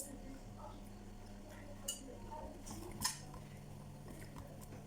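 Tableware clinking during a meal: three short sharp clicks, about a second apart, over a low steady hum.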